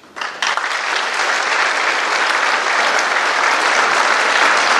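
Audience applause, a dense steady clapping that breaks out within the first half second and keeps going.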